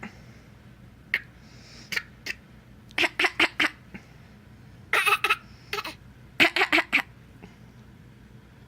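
Bouts of coughing: a few short, sharp coughs in quick succession, repeated several times, with the longest runs of about four coughs.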